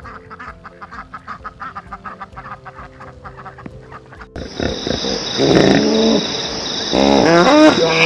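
Duck quacking: a fast run of short, soft quacks, then from about halfway a sudden, much louder stretch of harsher honking calls over a steady high hiss.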